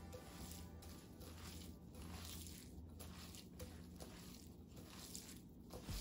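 Faint wet squishing as seasoned glass noodles with carrot and green onion are tossed and squeezed by hand in a glass bowl.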